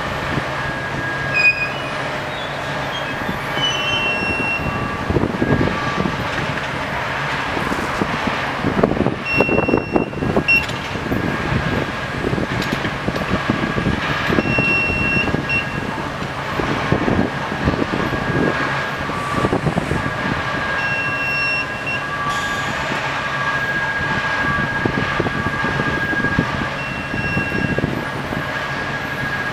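Rail crane running steadily during a lift, with scattered metallic clanks and short high squeals coming and going.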